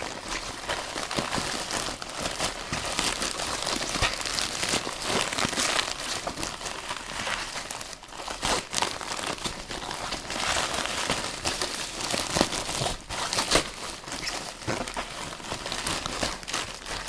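Packaging crinkling and crumpling as a parcel is handled and opened by hand, a continuous uneven crackle with frequent sharp crackles.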